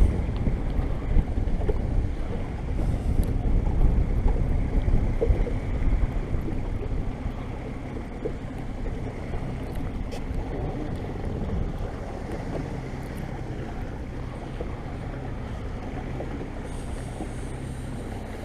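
Small fishing boat's motor running steadily at slow speed, mixed with wind buffeting the microphone and water noise; louder for the first few seconds, then easing.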